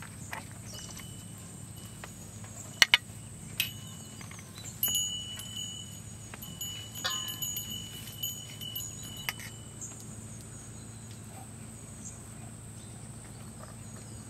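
Sharp metallic clicks, then several seconds of light clinks with a high, held ringing tone, like small metal pieces chiming.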